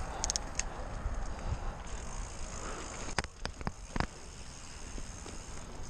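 Giant Stance 1 mountain bike rolling along: low wind rumble on the microphone and tyre noise. A few light ticks come near the start, then sharp knocks and rattles about three to four seconds in as the bike goes from pavement onto a bumpy dirt trail.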